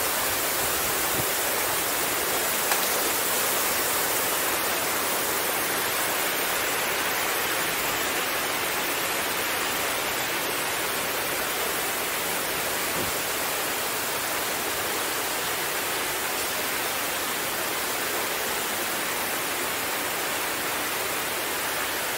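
Fountain water splashing steadily into its pool, an even hiss.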